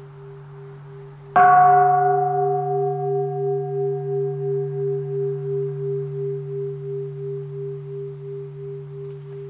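Large Buddhist bowl bell (qing) struck once with a wooden striker about a second and a half in, ringing out with several clear tones over a deep hum. It then fades slowly with a wavering beat about twice a second. A lower hum from an earlier strike is still sounding before the stroke.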